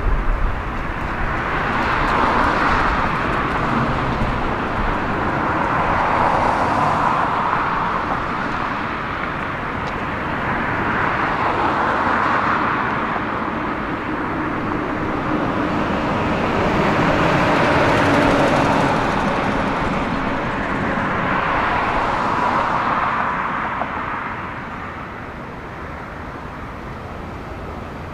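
Steady running noise of a moving vehicle, swelling and easing about every four to five seconds and dropping somewhat near the end.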